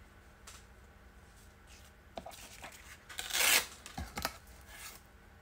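A strip of aged paper torn against the edge of a ruler to give it a ragged edge: one short rasping tear about three and a half seconds in, with a few light knocks just before and after it.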